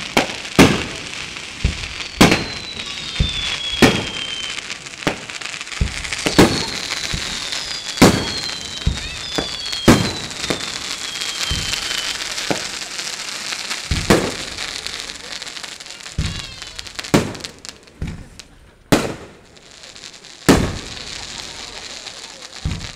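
Fireworks display: aerial shells bursting with a sharp bang about every one to two seconds over a steady crackle. In the first half, several whistles fall in pitch over about two seconds each. The bangs thin out near the end, with quieter gaps between them.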